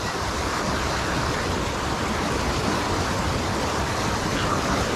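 River rapids rushing over rocks: a steady, even rush of whitewater.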